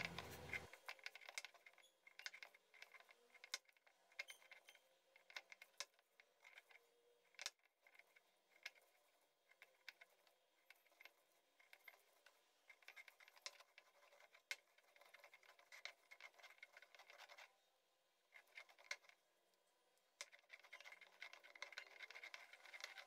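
Faint scraping and crunching of a stone roller grinding raw shallots on a flat grinding stone (arakallu), with many small irregular clicks. The grinding pauses briefly twice in the last third.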